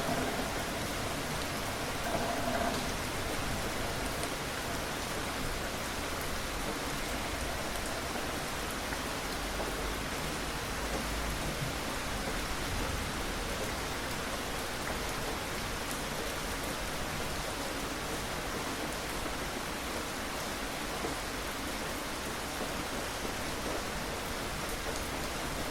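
Steady rain falling on a surface: a continuous, even hiss of drops.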